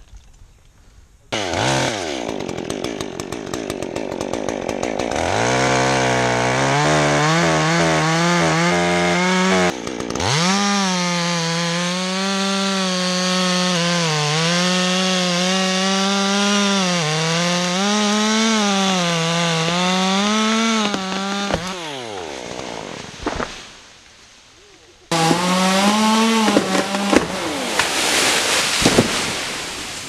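Stihl MS 201T top-handle chainsaw revving up and cutting wood, its engine pitch wavering as it bogs and recovers under load in the cut. Near the end it drops off briefly, then revs and cuts again.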